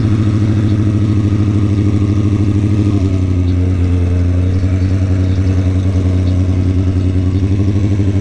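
Sport motorcycle's engine running steadily at low revs as the bike rolls slowly, its note stepping slightly lower about three seconds in.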